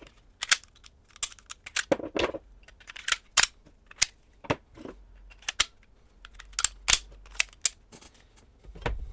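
Sharp clicks and snaps of a Walther 9mm pistol's slide and frame being handled and fitted together: about fifteen irregular clicks, with a duller knock about two seconds in.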